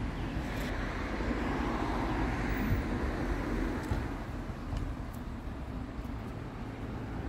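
Outdoor road traffic noise: a vehicle passing by, a continuous rushing that swells a second or two in and then slowly fades, over a low rumble.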